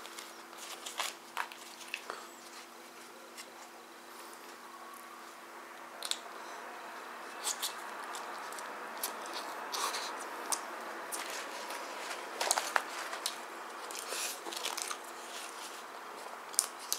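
A person chewing flatbread close to the microphone, with many sharp wet mouth clicks and smacks scattered throughout, and the soft tearing of the bread between bites.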